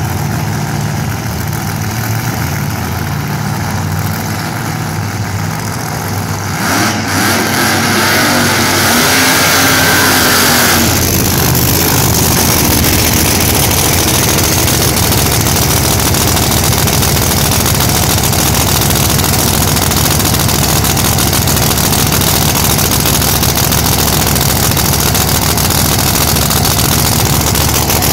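Pro Mod drag car engine idling, climbing in pitch for a few seconds about seven seconds in, then running loud and steady close by.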